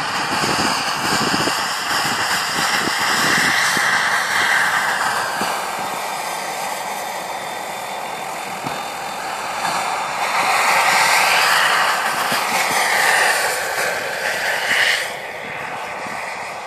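JetCat PHT3 gas turbine of a radio-controlled model helicopter running at flight power with the rotor's rush, during fast low passes. The whine glides up and down in pitch as the helicopter passes, loudest a little after the middle, and drops off suddenly near the end.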